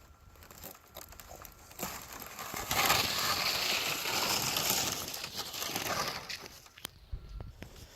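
Mylar thermal emergency blanket crinkling loudly as it is handled and unfolded. The rustle builds over the first couple of seconds, runs for about three seconds, then fades to a few light clicks.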